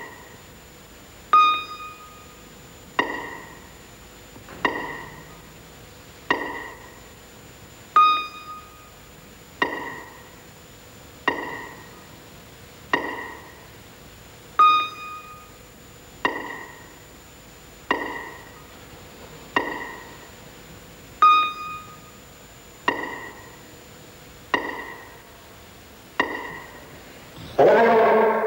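Slow, sparse music on a piano-like keyboard instrument: one ringing note struck about every second and a half, with a second, higher note added on every fourth stroke. A louder, fuller chord-like sound comes near the end.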